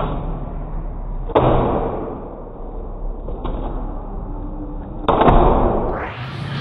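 Handboard smacking down onto a countertop as it lands flip tricks: a sharp hit about a second and a half in, a small tap midway, and a louder hit about five seconds in, each trailing off over about a second.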